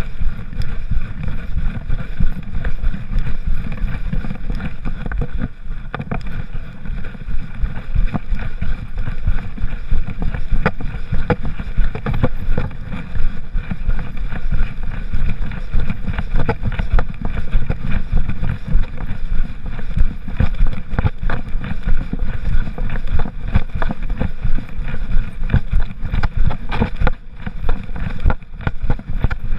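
Handling noise from a GoPro camera strapped to a walking poodle's back: a continuous low rumble with many small knocks and rubs as the camera jostles.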